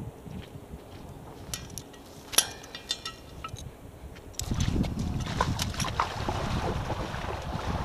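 Scattered clinks and taps of metal dive gear being handled beside a rebreather cylinder. About four and a half seconds in it gives way to wind buffeting the microphone and water splashing as a diver wades into the lake carrying cylinders.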